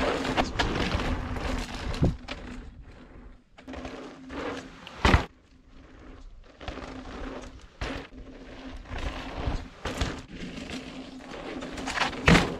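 Mountain bike passing along a dry dirt trail: tyre and trail noise that swells and fades, with two sharp knocks, one about midway and a louder one near the end, as the bike hits bumps.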